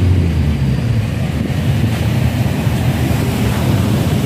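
Wind buffeting the phone's microphone as a steady low rumble, with road traffic behind it.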